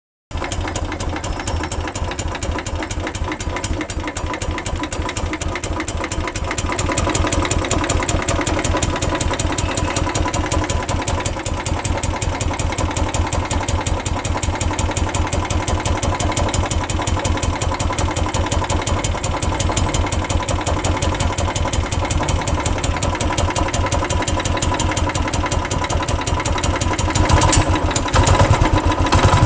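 Royal Enfield Classic 350's single-cylinder engine running at idle with a steady, even beat; this is the engine noise the owner is worried about. It gets a little louder about seven seconds in and again just before the end.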